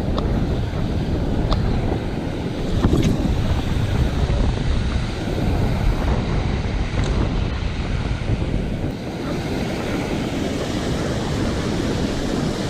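Pacific surf breaking and washing on the beach, with wind buffeting the microphone. A few faint clicks sound over the steady roar.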